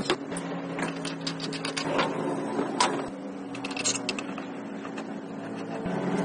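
Irregular clicks and knocks of metal parts and tools being worked inside a wood planer's cast housing, over a steady low hum.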